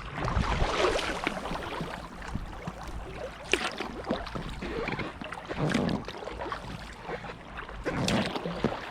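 Kayak paddling: paddle blades dipping and splashing about every two seconds, over water gurgling along the hull.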